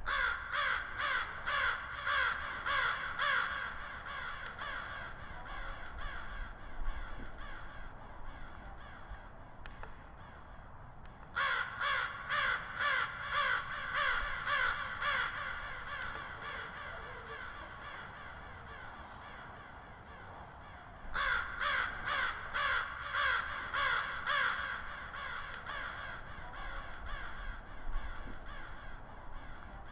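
Crow cawing in three bouts of rapid repeated caws, about two a second. Each bout lasts a few seconds and trails off into fainter caws. The bouts start at the beginning, about a third of the way through and about two-thirds of the way through.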